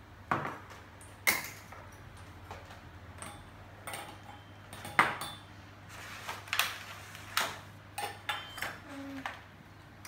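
Metal measuring cup and glass sugar jar clinking and knocking against each other while sugar is measured out: about ten sharp clinks and taps at uneven intervals, the loudest about five seconds in.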